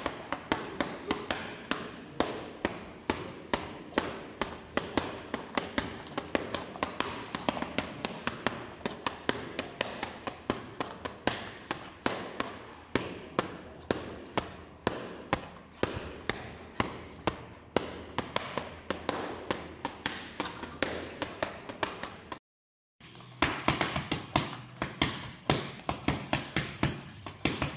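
Rapid series of punches smacking against a tensed bare stomach, about three a second: boxing gloves hitting abdominal muscles in ab-conditioning drills. The run breaks off for a moment about three quarters through, then carries on at the same pace.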